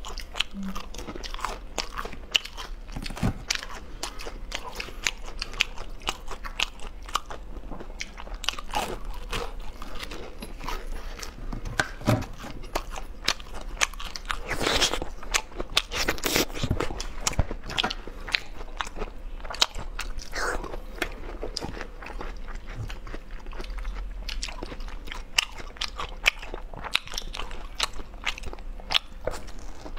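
Close-miked eating: biting into and chewing food, with many small irregular crunches and mouth clicks.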